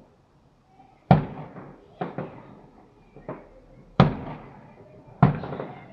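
Aerial fireworks shells bursting: about six sharp bangs roughly a second apart, each trailing off in a rumbling echo. The loudest come about a second in, at four seconds and near the end.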